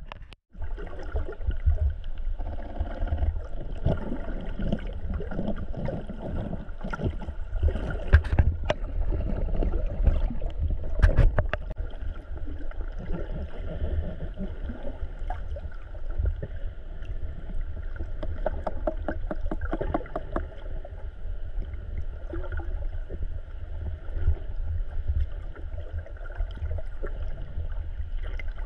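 Underwater sound picked up by a camera held below the surface: a steady low rumble of moving water with a faint steady hum over it. Scattered sharp clicks come and go, thickest about eight to twelve seconds in.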